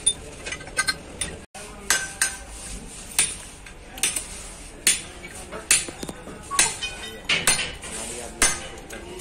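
Steel tool clanking against a truck differential's crown-and-pinion housing as a mechanic works a bar on it: about ten sharp metallic clanks, roughly one a second, each ringing briefly.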